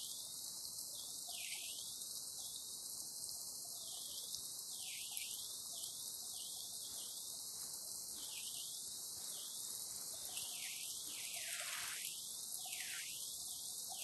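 Waterfall water rushing over rocks, heard as an even, steady hiss that sits mostly in the high range.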